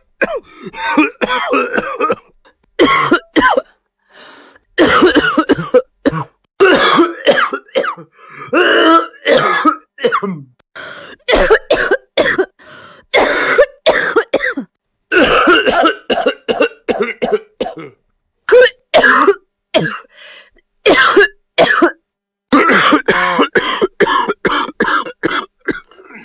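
A person coughing in a long series of short, harsh fits, some with throat clearing. Each fit is cut off by a brief silence before the next begins.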